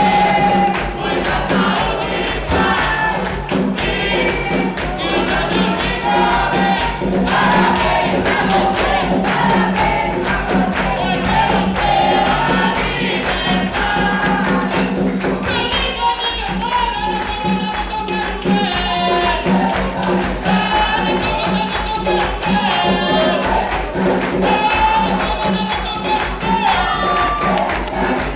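Capoeira roda music: voices singing together over rhythmic percussion, including a pandeiro.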